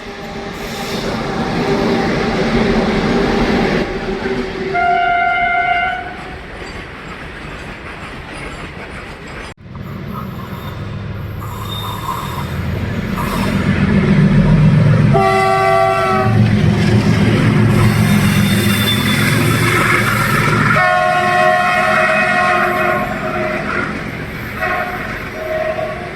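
Indian Railways locomotives running past with wheels clattering on the rails, sounding their twin-tone horns: a short blast about five seconds in, then, in a second clip, a blast that falls in pitch as the train goes by, followed by longer blasts near the end.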